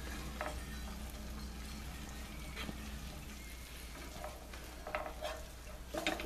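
Spinach, garlic and shallots sizzling faintly in a pan on its residual heat after the burner is shut off, with a wooden spatula stirring and scraping the leaves a few times.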